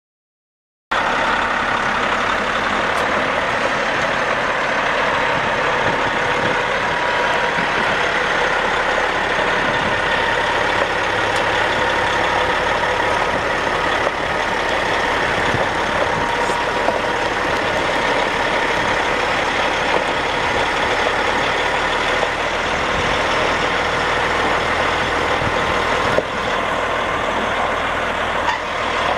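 Caterpillar C15 15.2-litre straight-six turbo diesel of a Freightliner semi truck running at a steady idle, cutting in abruptly about a second in.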